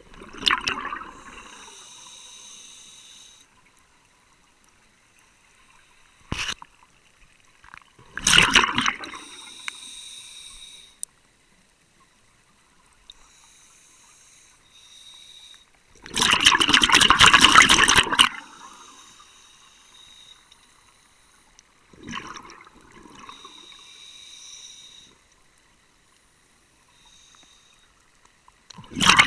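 Scuba breathing heard underwater through a regulator. A loud rush of exhaled bubbles comes roughly every six to eight seconds; the longest is about two seconds. Between them the regulator gives a thinner hiss.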